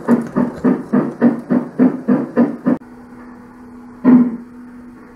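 Märklin BR 38 Gauge 1 model steam locomotive's sound unit playing even steam chuffs, about three and a half a second, which stop abruptly a little under three seconds in. A steady low hum remains, broken by one short loud blast about four seconds in.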